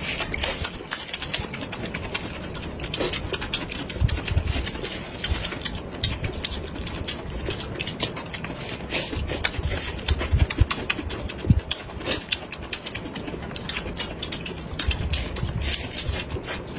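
Close-miked eating: two people chewing and smacking on thin pancake wraps filled with shredded vegetables, with many quick wet mouth clicks and a few dull low knocks.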